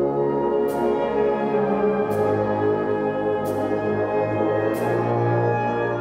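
A wind band of saxophones, tuba and brass plays sustained chords, and the bass note drops about two seconds in. A bright percussion stroke rings out about every second and a half, four times.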